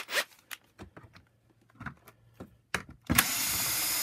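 Light clicks and taps of tools being handled, then about three seconds in a cordless drill-driver starts and runs steadily for about a second, undoing a screw in a vacuum cleaner's power nozzle.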